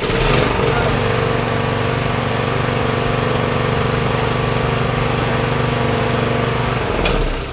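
Briggs & Stratton 775iS-Series DOV mower engine with InStart push-button electric start catching almost at once, running steadily, then cutting off about seven seconds in.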